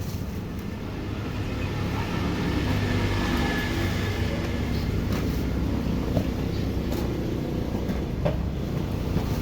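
Steady low rumble of a running vehicle, with a few faint clicks.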